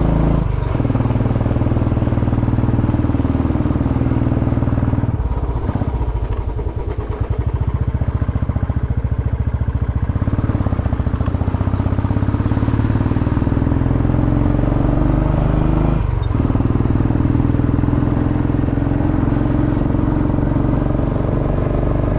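Motorcycle engine running under way. The engine note drops to a lower, pulsing note about five seconds in and picks up again to a steady note about sixteen seconds in.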